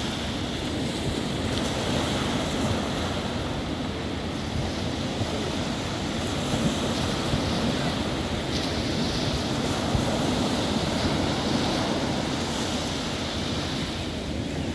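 Sea waves washing and breaking on a beach in a steady roar of surf, with wind buffeting the microphone.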